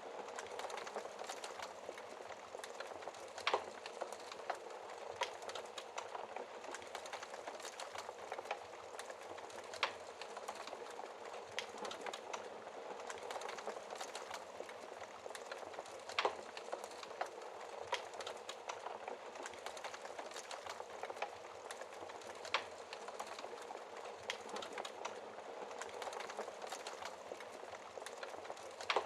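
Wood fire burning in a fireplace: a steady hiss of flames with constant small crackles and a few louder sharp pops several seconds apart.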